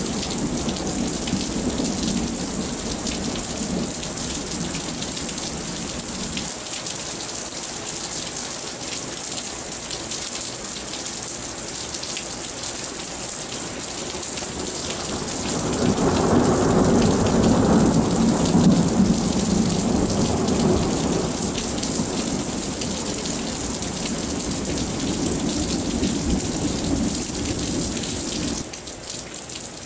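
Steady heavy rain with many individual drops ticking, under rolling thunder. The thunder rumbles low through the rain, swells to its loudest a little past the middle and fades over several seconds, then drops away suddenly near the end.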